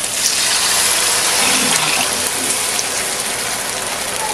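Coconut milk being poured into a hot wok of frying pork, garlic, onion and ginger: a steady pouring hiss that swells just after it starts, then holds.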